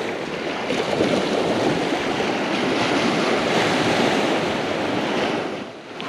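Ocean surf washing onto the beach, with wind on the microphone; the rush swells and eases, falling off briefly near the end.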